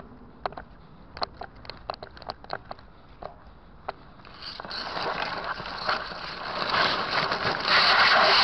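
Footsteps crunching on dry twigs and litter along a dirt path, with sharp crackles every few tenths of a second. From about four seconds in, a dense rustling and scraping builds and grows loud as dry grass stems and bush branches brush against the microphone.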